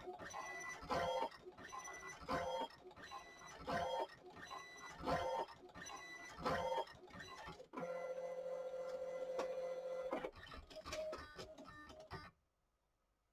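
ALPS MD-5500 thermal-transfer printer at work: its motor runs in short pulses that repeat about every second and a half, then holds a steady whine for about two and a half seconds. It runs in pulses again and stops abruptly near the end.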